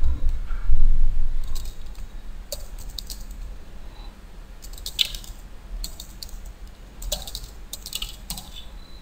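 Computer keyboard typing in short bursts of quick key clicks, with pauses between them. A low rumble is loudest in the first second and a half.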